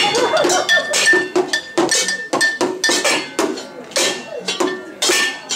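Kitchen pots and pans beaten with a wooden spoon as makeshift percussion: a quick clanging rhythm of about four strikes a second, the metal ringing between hits.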